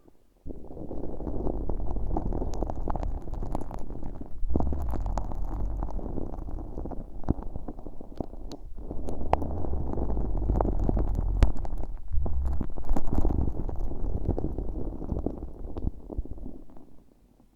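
Earpick working stiff, very sticky slime packed with fine glitter directly on the bare ear of a binaural microphone, with no plastic wrap over it: continuous close sticky crackling with many little clicks and a deep rumble, easing off briefly a few times.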